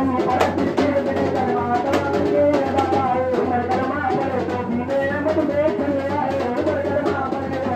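Hand-held frame drums (daf) beaten in a lively, steady rhythm, with a man's voice singing a melody over them.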